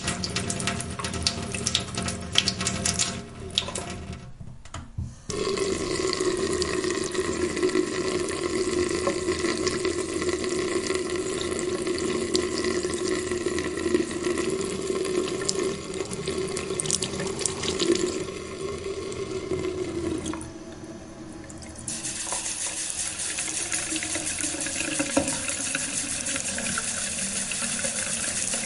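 Water running steadily, dropping away briefly about four seconds in and again about twenty seconds in.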